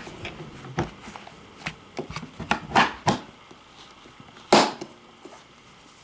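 Scattered clicks, knocks and rustles of hands handling a fridge in its canvas cover, with one louder knock about four and a half seconds in.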